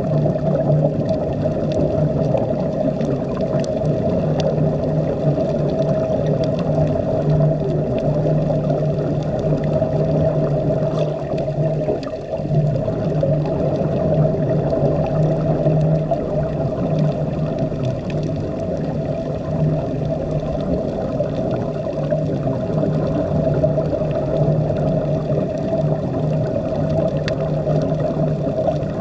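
Steady low machine hum carried through the water in an underwater recording, over a constant wash of water noise and bubbling.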